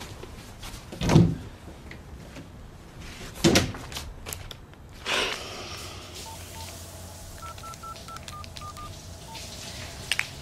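Cordless phone keypad beeping as a number is dialled: about ten short single-pitched beeps in a quick run during the second half. Before that come two loud thumps and a softer one.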